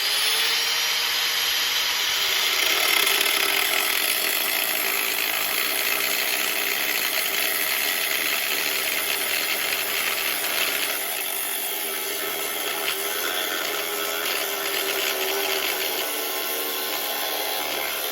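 A handheld power cutting tool running steadily as it cuts into a motorcycle's stock metal rear fender, its tone shifting a little about eleven seconds in.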